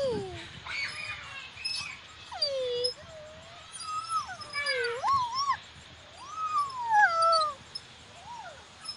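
A toddler's high-pitched squeals and coos, about eight separate calls that glide up and down in pitch. The longest, rising then falling, comes past the middle.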